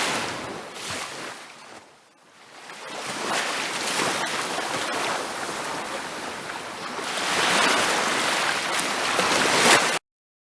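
Ocean surf washing on a beach: one wash fades almost to nothing about two seconds in, then the surf builds again and swells louder near the end before the sound cuts off suddenly.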